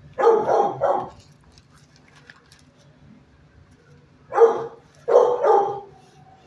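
Dog barking in a shelter kennel: two barks right at the start, then a run of three about four seconds in.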